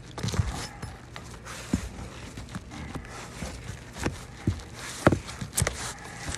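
A metal roofing snake being worked under a shingle to free it from the roof decking: irregular scraping clicks and knocks, with a few sharper knocks in the second half.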